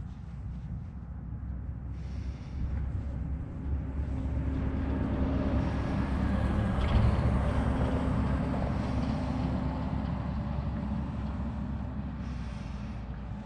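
A motor passing by: a low engine rumble swells over several seconds to its loudest about seven seconds in, then fades away.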